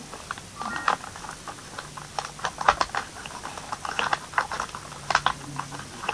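Small plastic toys being handled: irregular light clicks and taps, sometimes several in quick succession.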